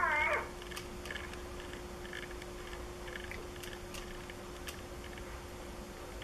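Baby's straining noises heard through a video baby monitor's speaker while she poops: a short falling whimper at the very start, then faint scattered grunts over a low steady hum.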